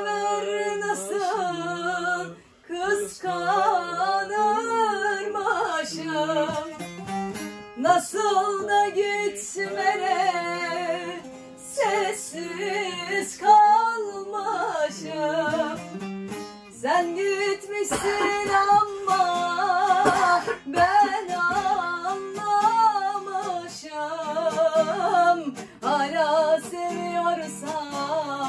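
A woman singing a Turkish folk song in a wavering, ornamented melody, accompanied by a plucked bağlama (long-necked saz).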